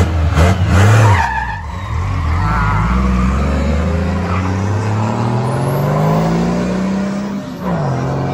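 Ford F-250 pickup's engine revving hard at the start line, then pulling away with a slow, steady rise in pitch over several seconds. A gear change drops the pitch near the end before it climbs again. The slow climb is what onlookers take for a launch in third gear.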